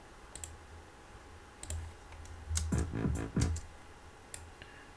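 Scattered computer mouse clicks, about six across a few seconds, over a low steady hum. A short pitched sound lasting under a second comes about three seconds in.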